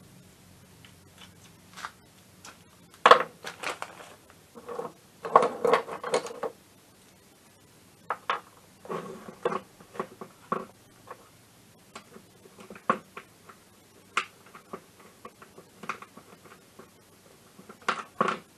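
Hand tools clicking and clinking against a scooter engine's aluminium crankcase, including a ratchet wrench, in irregular bursts of sharp metallic clicks and clatters. The loudest clusters come about three seconds and five to six seconds in.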